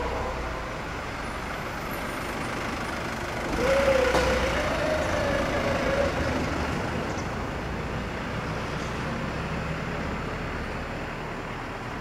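Seibu 20000 series electric train with its Hitachi 3-level IGBT-VVVF inverter, a steady running rumble throughout. About three and a half seconds in, a rush of noise comes in with an inverter whine that holds roughly level, rises slightly, and fades about three seconds later.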